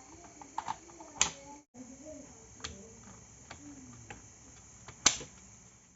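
Scattered sharp clicks and light taps of small tools and parts being handled on the workbench, the loudest about a second in and near the end.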